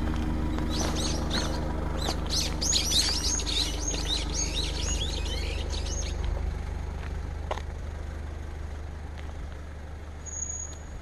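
Small songbirds chirping in a quick, busy run for about five seconds, then a single short high whistled note near the end, over a steady low rumble.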